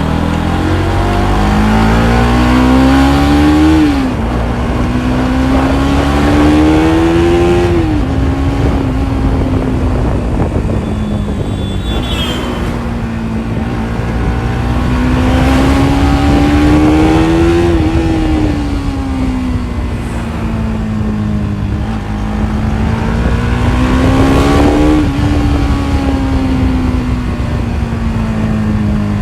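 Stock Bajaj Pulsar NS200 single-cylinder engine and exhaust under way: the engine note climbs and drops sharply twice in the first eight seconds as it shifts up through the gears, then eases off and builds again in slow swells.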